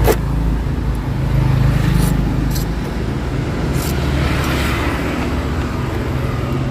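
Steady low rumble of road traffic and vehicle engines, with a few short, light metallic clicks from a tool working a motorcycle's ignition lock.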